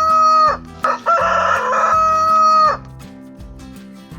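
Rooster crowing: the tail of one crow, then a second full crow, each holding a steady high note before falling off at the end. Soft background music continues after the second crow ends.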